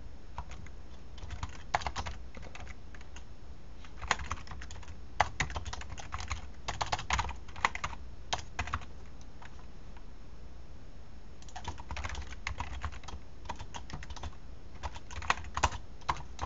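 Typing on a computer keyboard in quick runs of keystrokes, with a pause of a couple of seconds about halfway through.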